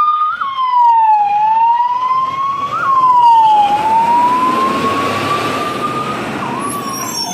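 Fire engine siren wailing, its pitch sweeping slowly down and up several times, with a short chirp at the top of the first two rises.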